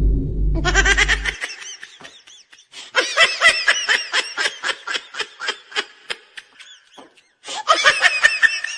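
High-pitched laughter in quick repeated bursts, in two long bouts with a short break near the end. It starts as a low, deep musical sting fades out in the first second or so.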